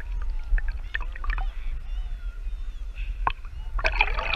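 Sea water sloshing and gurgling against a GoPro held at the surface, with a steady low rumble and scattered small splashes. A louder splash comes near the end as a wave washes over the camera.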